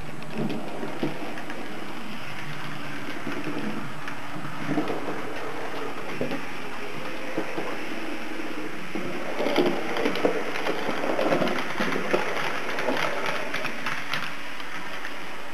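HO-scale model trains running on the layout's track: a steady rolling clatter of small metal wheels on rail with many clicks, getting louder and busier from about nine seconds in until near the end.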